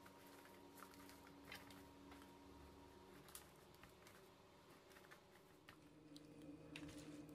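Faint light clicking and patter of julienned winter radish sticks being turned over by hand on a metal tray while they are salted, over a low steady hum.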